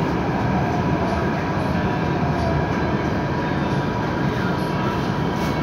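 São Paulo Metro Line 5 train running, heard from inside the car: a steady rumble of wheels and running gear with a faint steady tone above it.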